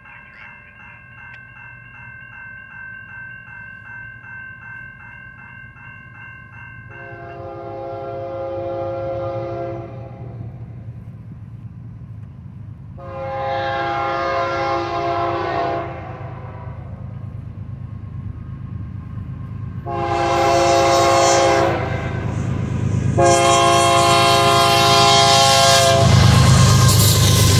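Grade-crossing bell ringing rapidly while an approaching diesel freight locomotive sounds its multi-note air horn in the crossing signal: two long blasts, a short one and a long one. Near the end the locomotive passes close by, its engine rumble and wheels turning loud.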